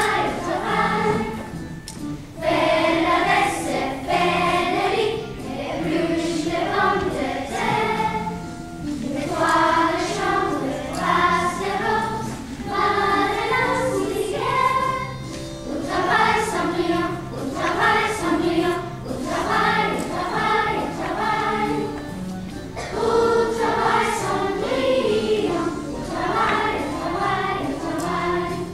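A group of children singing a song together, in phrases with held notes.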